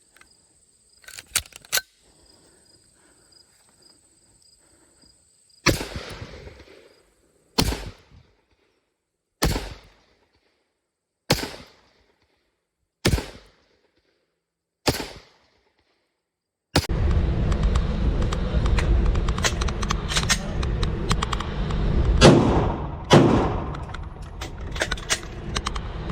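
Handgun gunfire in an edit: a few sharp clicks over a faint high whine, then six single shots about two seconds apart. About 17 seconds in, it gives way to a loud, dense din of rapid shots over a heavy low rumble.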